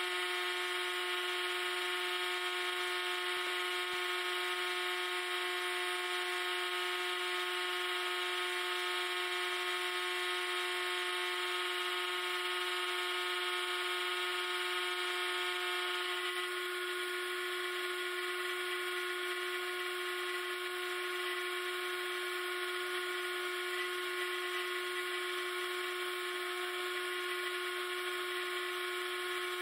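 Metal lathe running, its carbide tool cutting a tightly clamped stack of soda-can aluminum squares down into thin shim washers: a steady high whine, its tone changing slightly about halfway through.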